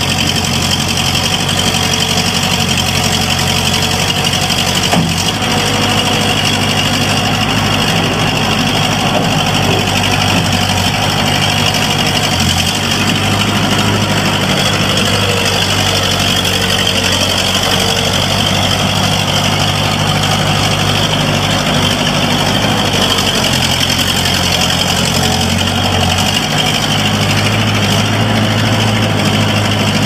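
Bobcat S150 skid steer loader's 49 hp Kubota turbo diesel running steadily while the machine works its bucket and drives, its note shifting a few times with load.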